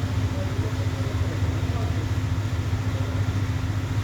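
Husqvarna 353 two-stroke chainsaw idling steadily, a constant low hum.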